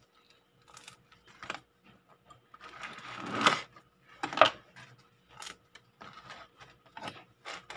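Serrated bread knife sawing through the crunchy crust of a sourdough loaf, with crackling crust and scraping on the board. A few rasping strokes, the loudest about three and a half seconds in, then shorter scrapes and crackles.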